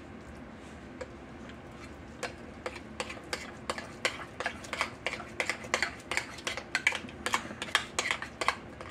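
Metal spoon stirring mashed pinto beans and egg in a glass bowl, clicking and scraping against the glass. The strokes are sparse at first, then come quickly, several a second, from about two seconds in.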